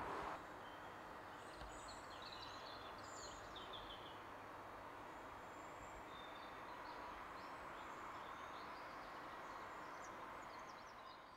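Faint outdoor background hiss with small birds chirping now and then, fading out near the end.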